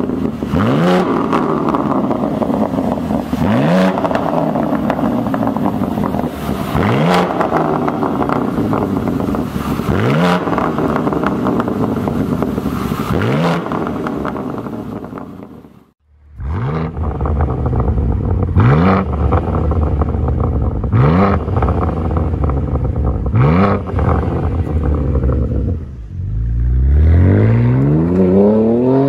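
BMW M3 G80 Competition's twin-turbo S58 inline-six through an Fi Exhaust valvetronic catback with quad tips, blipped from idle about every three seconds, each rev rising and falling sharply. After a brief cut in the sound about halfway, more blips follow. Near the end the car accelerates away, its pitch climbing steadily.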